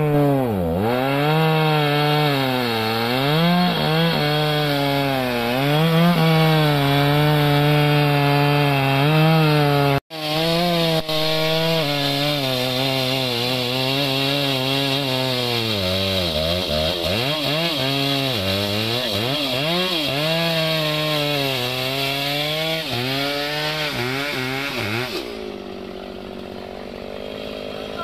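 Two-stroke petrol chainsaw cutting into a tree trunk at full throttle, its engine pitch sagging and recovering again and again as the chain bites into the wood. The sound breaks off for an instant about a third of the way through, and near the end the saw drops back to idle.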